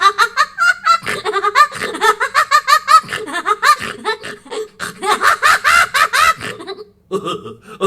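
A person laughing hard in quick repeated bursts with rising and falling pitch. It breaks off about seven seconds in, and a different voice sound starts just before the end.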